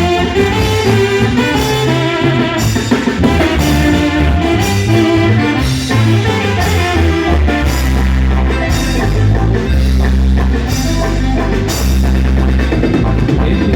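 Recorded band music with a steady beat: drum kit, bass and melodic instruments playing continuously.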